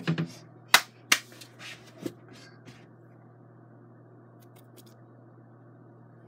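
Five or six sharp clicks in the first two and a half seconds, made by a hand close to the microphone, over a steady low hum that continues once they stop.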